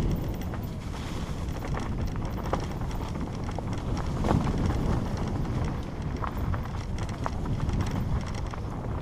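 Mountain bike descending a rough dirt singletrack: wind buffeting the microphone over the rumble of the tyres on the ground, with irregular clicks and rattles from the bike going over roots and stones.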